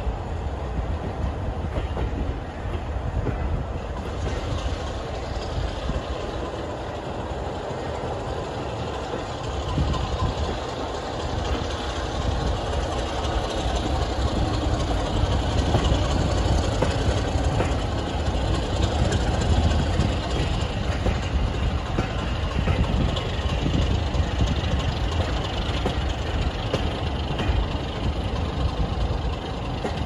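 Passenger train in motion, heard from an open carriage window: a steady rumble of wheels on the rails, swelling a little in the middle.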